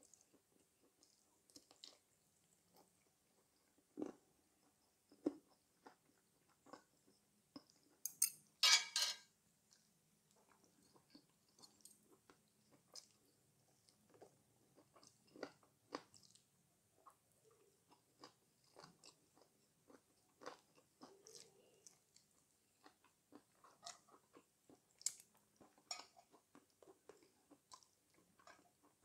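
Close-miked chewing and biting of spicy stir-fried chicken (dak galbi), with many short wet mouth clicks; a louder stretch of chewing about eight seconds in.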